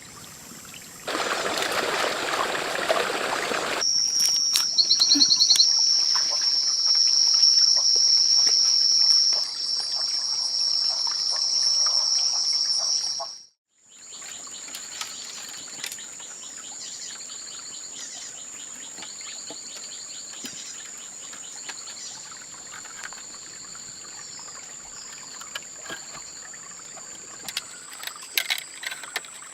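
Insects in a tropical forest: a loud, steady, high-pitched drone for about ten seconds, then, after a brief cut, a fainter steady high whine with rhythmic pulsing calls beneath it and scattered small clicks. About a second in there are a few seconds of rushing noise like pouring water.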